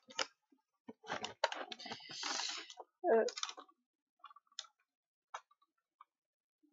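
Folding makeup case being handled and opened out: its hinged trays and lids click and clatter, with a rustle about two seconds in, then a few scattered light clicks.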